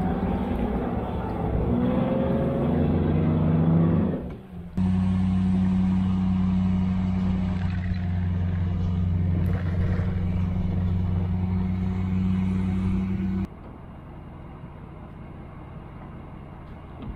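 Pickup truck engine towing a bass boat on its trailer, heard from the boat: it speeds up with a rising pitch, then after an abrupt cut runs at a steady drone. About 13 seconds in it cuts off abruptly to a much quieter steady background.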